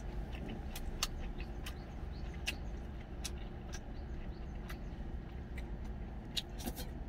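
Eating sounds: a spoon clicking and scraping against a stainless steel bowl of soup, with chewing and slurping, heard as a string of short, irregular sharp clicks over a steady low hum.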